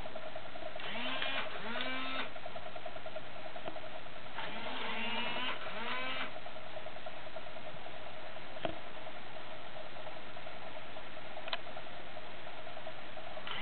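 Playskool KOTA the Triceratops animatronic toy idling on its own: a steady pulsing motor whir, with the toy's electronic voice giving soft two-part calls about a second in and again around five seconds in, and two faint clicks later.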